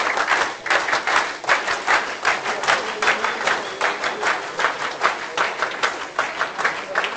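A crowd clapping in applause, with many sharp individual claps close by.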